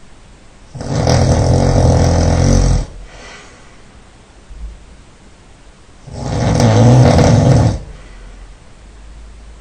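A man snoring loudly: two long, rasping snores of about two seconds each, some five seconds apart, with a faint breath between them.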